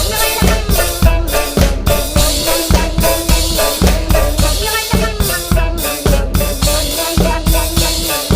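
Music with a steady drum-kit beat of kick and snare, over held pitched tones.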